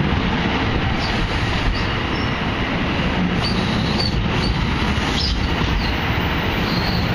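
NJ Transit double-deck passenger coaches rolling past at close range: a steady rumble of wheels on rail, with brief high wheel squeals several times.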